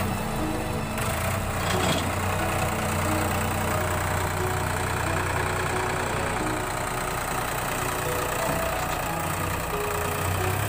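Swaraj 963 FE tractor engine driving a Dasmesh 4x4 combine harvester, running steadily with a constant low drone.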